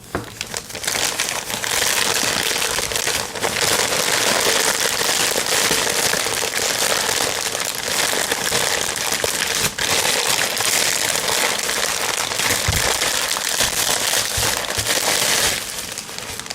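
Parcel packing material being handled, crinkling and rustling continuously, then stopping about a second before the end.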